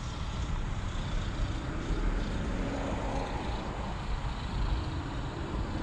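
Faint drone of a Parkzone T-28 RC plane's electric motor and propeller in flight, rising a little in the middle, under a steady rumble of wind on the microphone.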